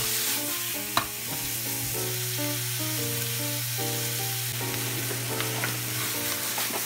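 Pork and onion sizzling in a hot frying pan as they are stir-fried, with a sharp knock about a second in as the tongs hit the pan.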